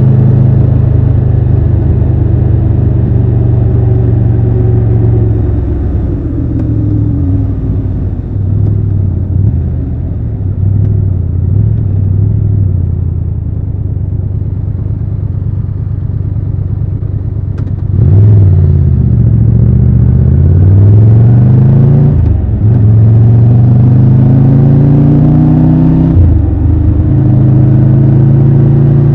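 Triumph Tiger 1200 Rally Pro's three-cylinder engine under way. It holds steady revs at first, then slows with falling pitch and runs quieter for about ten seconds. About eighteen seconds in it pulls away hard and gets louder, its pitch climbing and dropping back at each upshift before settling into steady running.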